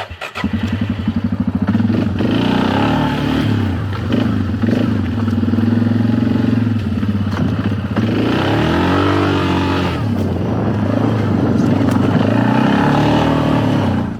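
Suzuki King Quad 500 ATV's single-cylinder four-stroke engine running while being ridden, its revs rising and falling several times.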